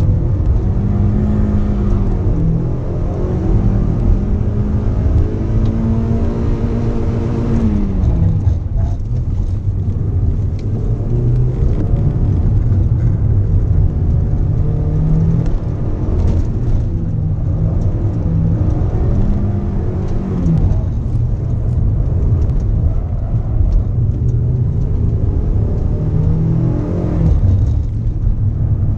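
Mazda MX-5's four-cylinder engine pulling hard on a timed sprint run, heard from onboard. The revs climb for several seconds, drop sharply about eight seconds in, then rise and fall again several times as the car accelerates, brakes and changes gear.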